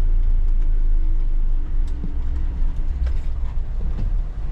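A four-wheel-drive truck's engine running slowly in low-range four-wheel drive, a heavy low rumble, with a few short knocks from about halfway in as it crawls over rough ground.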